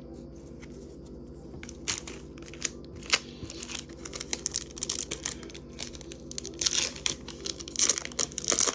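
Pokémon booster packs being handled and the cards flipped through: scattered card clicks with crinkling of the foil pack wrapper, growing busier and louder over the last couple of seconds. A steady low hum sits underneath.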